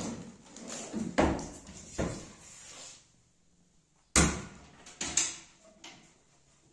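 Wardrobe drawers and cabinet doors being opened and shut: a series of about five sharp knocks and bangs, the loudest about four seconds in.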